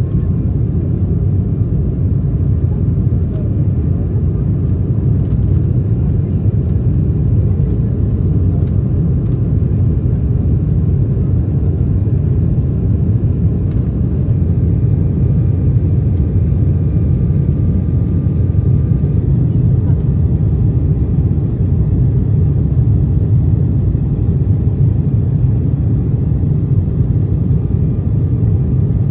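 Cabin noise of an Embraer 190 climbing after takeoff: its GE CF34 turbofans and the rushing air make a loud, steady low rumble, heard from inside the cabin over the wing.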